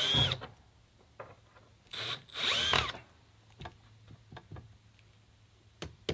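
Cordless drill driving screws into a manufactured stone siding panel: a brief whir at the start, then a longer run about two seconds in that winds down in pitch as it stops. Light clicks and taps come in between.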